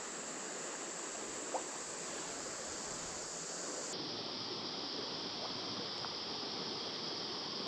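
Steady sound of creek water flowing, an even rushing with no rhythm.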